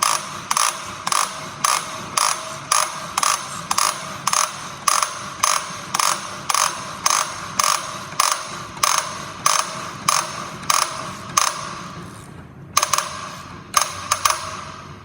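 Ratchet wrench clicking in steady strokes, about two a second, as it turns the nut of a pulley installer tool to press a GM power steering pump pulley onto the pump shaft. The strokes stop about twelve seconds in, and a few more clicks follow near the end.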